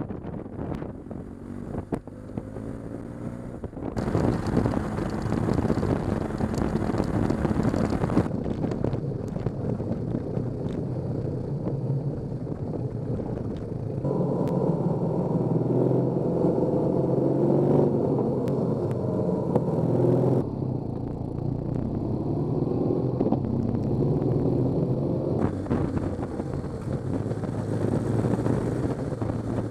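Onboard sound of a boxer-twin adventure motorcycle being ridden: the engine runs steadily under a rush of wind and road noise. The sound changes abruptly every few seconds as the footage cuts between clips.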